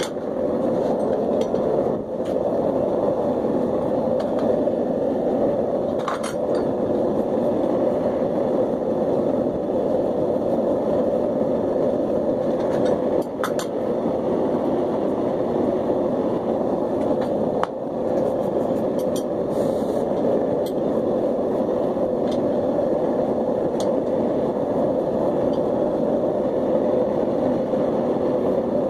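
Propane forge burner running with a steady roar, with a few faint clinks of metal about 6, 13 and 18 seconds in.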